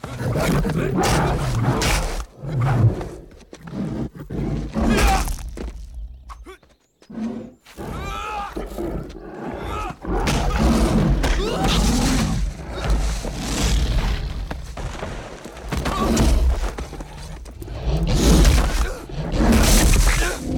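Movie fight soundtrack of a dragon roaring and growling, mixed with heavy thuds and blows. It is loud throughout, apart from a short break about seven seconds in.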